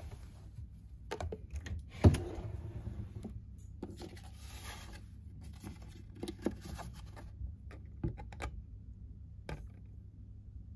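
A desk drawer being opened by hand, with one sharp knock about two seconds in, followed by light clicks and paper rustling as a folded printed menu card is handled.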